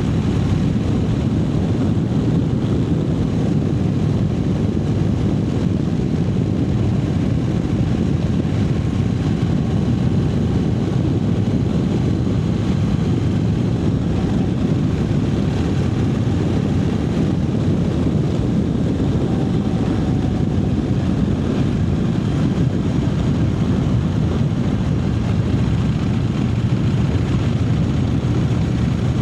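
Triumph Speed Twin 900's 900 cc parallel-twin engine running at a steady cruise while the motorcycle is ridden, a continuous low drone with no revving.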